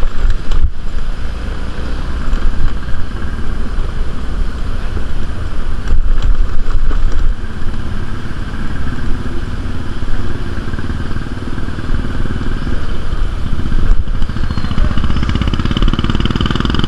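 Motorbike engine running on the move along a road, with wind rumbling on the microphone.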